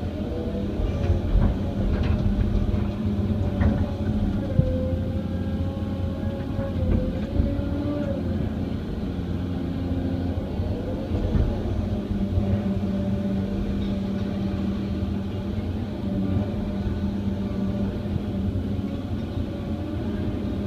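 Excavator's diesel engine running steadily under load while it digs and loads, with a whine that shifts in pitch as the machine works and a few knocks about two and four and a half seconds in.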